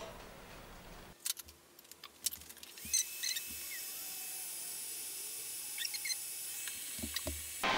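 A few faint clicks of wires being handled. Then, from about three seconds in, a soldering iron on a joint, with a faint steady hiss and a few tiny squeaks as the rosin flux in the solder sizzles.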